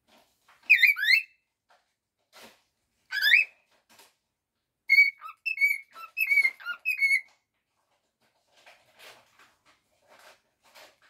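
Australian cockatiel whistling: two sharp sweeping chirps, then a quick run of short whistled notes a few seconds in, with faint taps in the quieter stretches.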